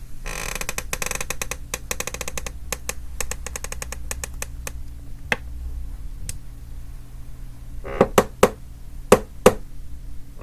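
Chair creaking under shifting weight: a rapid run of creaks and clicks for the first couple of seconds, thinning to scattered clicks, then about five louder, sharper creaks near the end.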